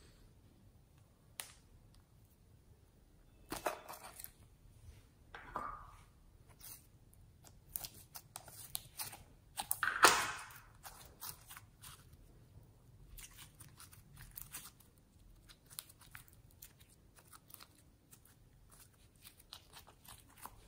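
Clear light-blue slime being pulled from a heart-shaped plastic case and squeezed and stretched in the hands, giving sticky crackling and tearing noises with small clicks and pops. The loudest burst comes about ten seconds in.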